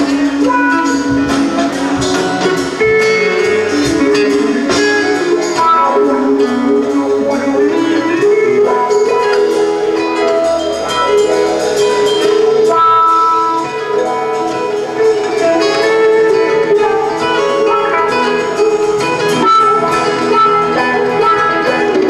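Live rock band playing: electric guitars over keyboards.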